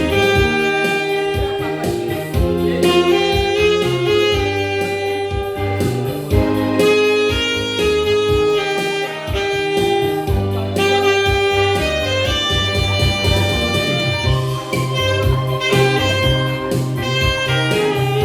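Saxophone playing a melody of held and moving notes over an accompaniment with a steady bass line.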